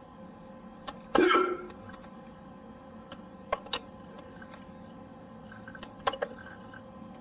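A man hiccuping: one loud hiccup with a short voiced catch about a second in, then two fainter pairs of quick clicks a few seconds apart.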